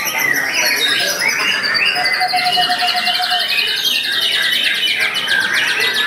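White-rumped shama (murai batu) singing loudly with varied whistled phrases, overlapped by other caged songbirds. From about two seconds in, a fast trill runs for about three seconds alongside a short held whistle.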